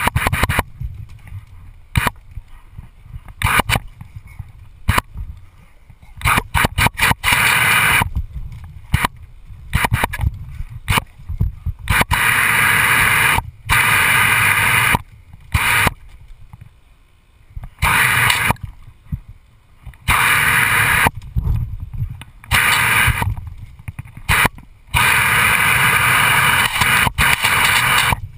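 Garden hose jet spraying and splattering onto a wet wooden deck, coming in stretches of a few seconds that stop and start, with scattered sharp clicks and knocks in the quieter gaps.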